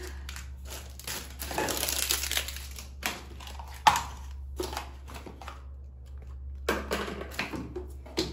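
Rummaging through a cluttered drawer: packaging crinkling and small objects clicking and knocking together, with one sharper knock about four seconds in.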